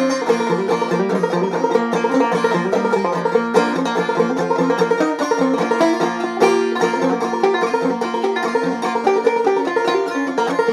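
Clawhammer banjo playing an instrumental break, a quick steady run of picked notes with a bluegrass-style band.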